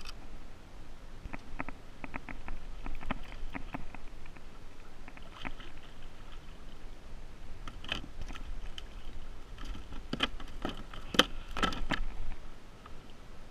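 A small tuna being landed by hand into a plastic sit-on-top kayak: a run of light clicks and knocks, then, from about eight seconds in, louder knocks and splashing as the fish is lifted from the water and thrashes against the kayak's deck.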